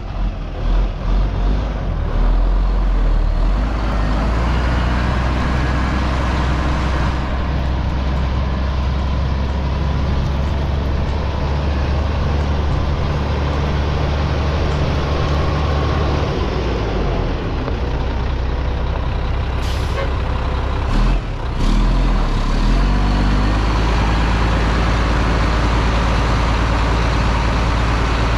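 1999 Mack mixer truck's diesel engine idling steadily. About two-thirds of the way through come a few brief sharp sounds, then a short dip and waver in the engine note before it settles back to a steady idle.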